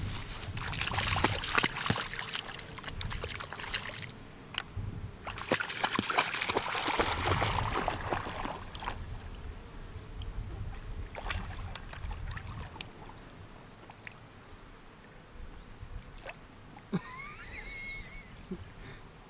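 A dog swimming in a pond, its paddling splashing and sloshing the water, loudest in the first half, then quieter lapping. A brief high chirp near the end.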